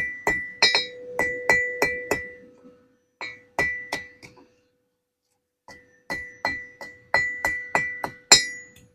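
A hammer striking hot steel on an anvil, about three blows a second in runs with short pauses. Each blow leaves the anvil ringing with a clear, bell-like tone.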